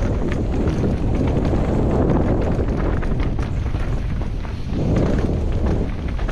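Wind rushing over the microphone of a camera riding on a downhill mountain bike at speed, with a steady run of rattles and knocks from the bike over rough trail.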